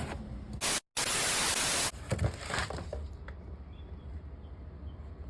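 A sudden burst of static-like hiss about a second long, cut in abruptly after a brief dropout to silence, followed by a few faint clicks over a low hum.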